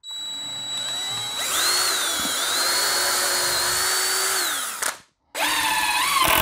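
Cordless drill boring pilot holes into a 2x4 brace: one run of about five seconds, its motor whine climbing as it speeds up, holding steady, then winding down, followed shortly by a second run near the end.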